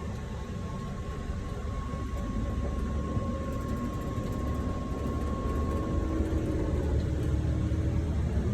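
A large engine running steadily with a low rumble that slowly grows louder, and a thin steady whine over it for the first six seconds or so.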